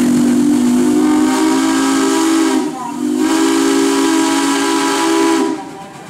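Steam whistle of a 1911 Case 110 steam traction engine blowing two long blasts, with a brief break between them a little under three seconds in; the whistle sounds several close tones at once, over a hiss of steam.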